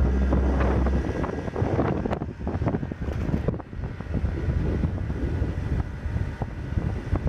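Gusty typhoon wind buffeting the microphone in uneven rumbling gusts, after background music cuts off about a second in.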